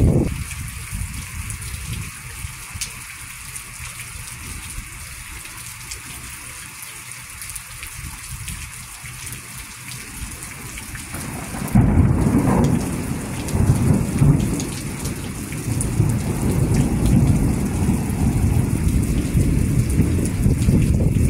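Thunderstorm: steady rain hiss, with thunder. A low rumble fades over the first two seconds, then about twelve seconds in a sudden loud clap breaks and rolls on as a long, uneven rumble.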